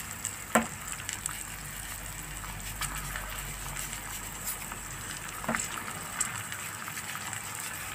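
Shelled broad beans and onion sizzling steadily in oil in a frying pan as their water cooks out, with a couple of faint clicks.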